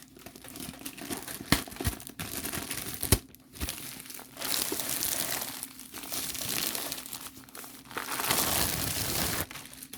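Packaging from a diamond-painting kit crinkling and rustling as it is handled. There are sharp clicks about one and a half and three seconds in, and two longer stretches of rustling in the second half.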